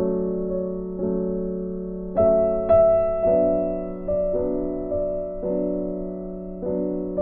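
Slow piano background music: sustained chords struck about once a second, each fading away until the next.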